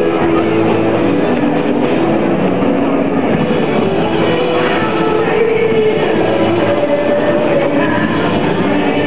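Railway turntable turning with riders on its bridge: a steady rumble with held tones that shift in pitch.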